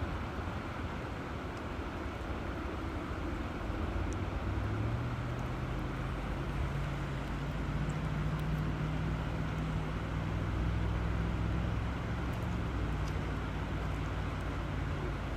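River water flowing steadily, with a low hum underneath that rises in pitch about five seconds in and drops back near the end.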